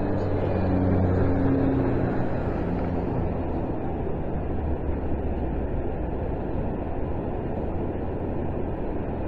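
A vehicle engine hums and fades away over the first three seconds, over a steady low rushing roar.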